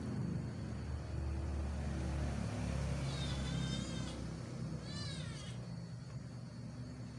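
A cat meowing twice: a wavering call about three seconds in, then a shorter rising-and-falling meow about five seconds in, over a low background hum.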